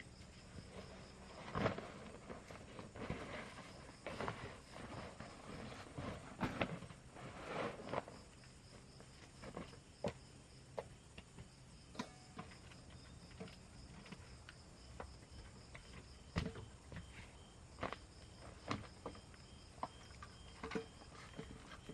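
Irregular knocks, taps and rustling from hands-on work, loudest and busiest in the first half, over steady insect chirring.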